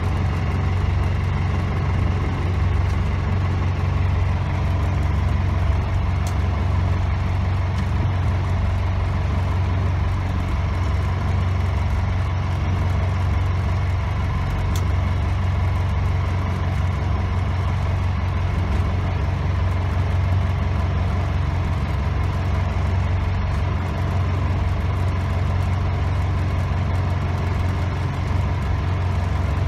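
Sailboat's inboard engine running steadily, a low even hum that stays unchanged throughout.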